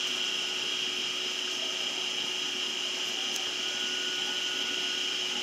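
Steady background hiss with a constant high-pitched whine and a faint low hum.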